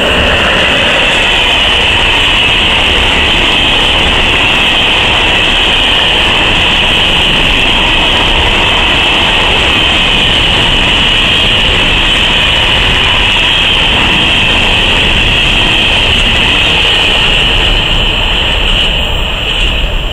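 Freight train of covered wagons behind a class 380 electric locomotive rolling past at close range: a loud, steady rush and rumble of wheels on rail, easing a little near the end as the last wagons go by.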